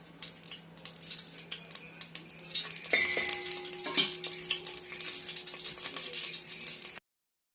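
Dried chillies sizzling in hot olive oil in a pan, with a utensil clinking and scraping against the pan. A steady faint tone joins about three seconds in, and the sound cuts off suddenly near the end.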